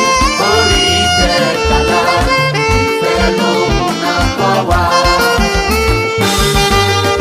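Upbeat band music led by saxophone and brass, over a steady, pulsing bass line.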